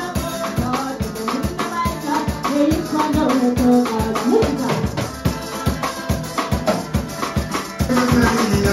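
Live parang band playing: a woman singing a gliding melody over a strummed cuatro and acoustic guitar, with a drum kit and a shaker keeping a steady beat of about three to four strokes a second.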